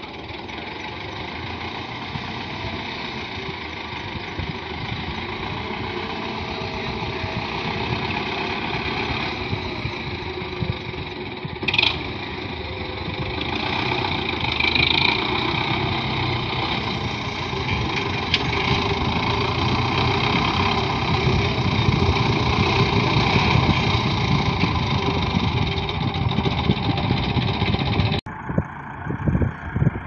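Belarus tractor's diesel engine running as the tractor drives closer, growing steadily louder, with one sharp click about twelve seconds in. About two seconds before the end the engine sound cuts off abruptly.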